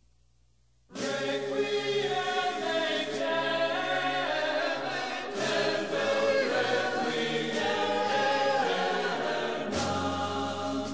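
Music with a choir singing sustained chords, coming in suddenly about a second in after a moment of near silence.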